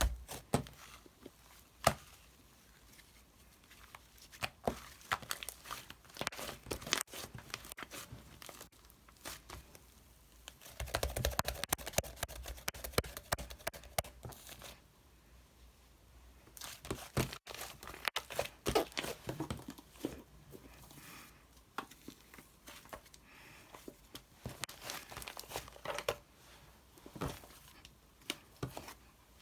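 Close crinkling and tearing handling sounds, with many scattered sharp clicks and taps; the busiest stretches come about a third of the way in and again past the middle.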